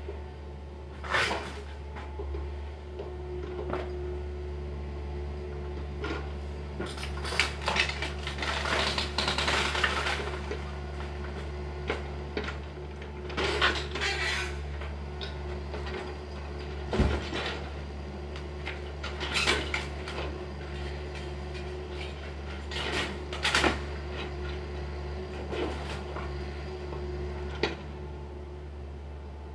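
Wooden house demolition: heavy machinery runs with a steady low hum while broken wood and debris clatter and crash in irregular bursts, several seconds apart, as the excavator breaks up the house and loads the waste.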